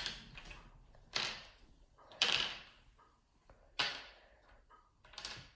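Loose plastic Rubik's cube pieces clicking and rattling as they are picked through by hand, four short clatters each followed by a brief rustle.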